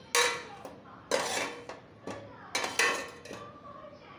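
Steel ladle clanking against a kadai four times, with a short ringing after each strike: near the start, about a second in, and two close together past the middle. The clanks come as fish pieces are put one by one into the boiling mustard-paste gravy.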